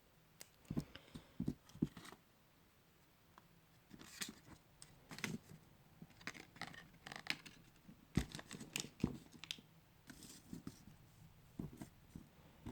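Scattered clicks, scrapes and short rustles of a small plastic toy and its wrappings being handled on a table.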